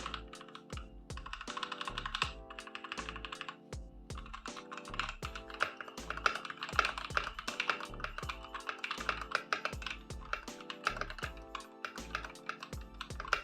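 Fast, continuous typing on an Ajazz AK871 mechanical keyboard, a dense run of key clicks, over background music.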